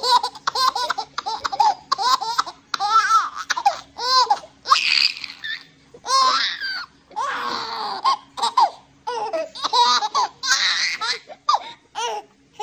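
A baby laughing, burst after burst with short pauses between.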